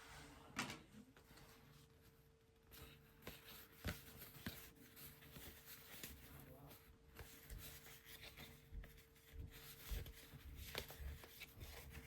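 Faint rustling and light taps of cardboard trading cards being handled and flipped through one at a time, over a faint steady hum.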